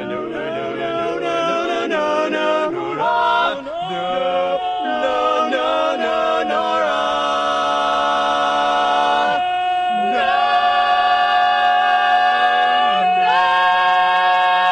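Male barbershop quartet singing a cappella in close four-part harmony. The chords shift quickly at first, then settle into long held chords, with brief breaks and a chord change about two-thirds of the way through and again near the end.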